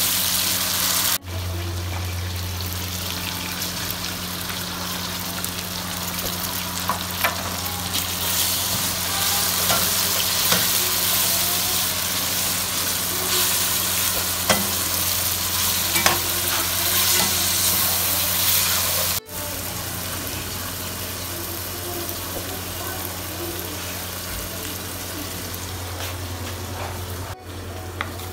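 Sliced onions and tomatoes sizzling as they fry in oil in an aluminium pot, stirred with a spatula, with sharp clicks now and then.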